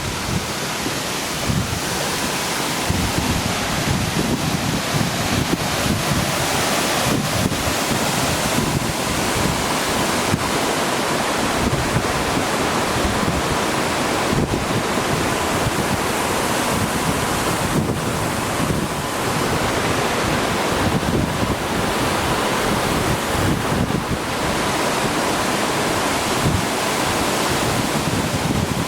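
Waterfall rushing in a steady roar of falling water, with wind buffeting the microphone in gusty low rumbles.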